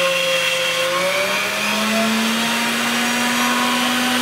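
Small bench grinder's motor running with a steady whine while a metal pin is ground on its wheel. The pitch sags slightly under load, then rises and settles higher about a second in as the part comes off the wheel.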